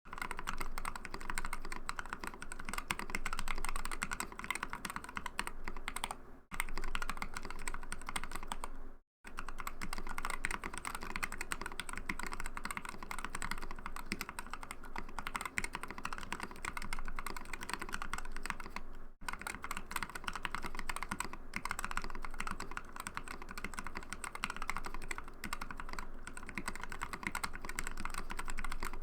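Typing on a mechanical keyboard with Krytox-lubed, filmed Gateron linear switches: a fast, continuous stream of keystrokes with a few short breaks.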